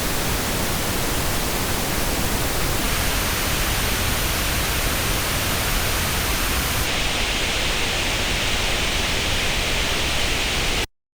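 Pink noise test signal played through Apple AirPods and recorded in an artificial ear simulator: a steady, full-range hiss. Its treble changes about three seconds in and again about seven seconds in, growing brighter, and it cuts off sharply just before the end.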